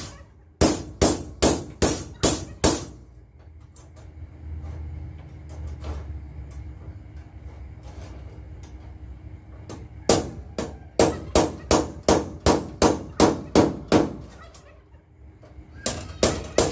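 Hammer blows on a steel strap, shaping it around a bolt on a solid steel trailer deck, at about three strikes a second. A run of about seven comes first, then a pause of several seconds, then a run of about eleven, and two or three more near the end.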